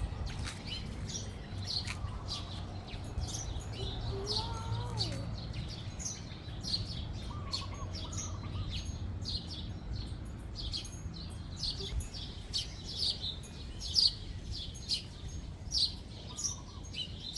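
Small birds chirping continuously: a dense run of short, high chirps, several a second, with a few louder ones near the end.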